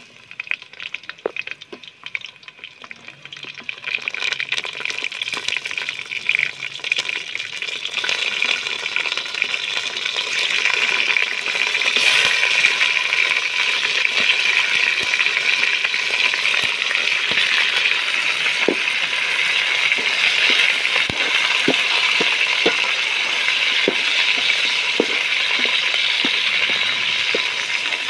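Desi chicken pieces dropped into hot oil with fried onions in an aluminium pot, frying with a crackling sizzle that builds over the first several seconds and then holds loud and steady. In the second half a metal spoon clicks and clinks against the pot as the chicken is stirred.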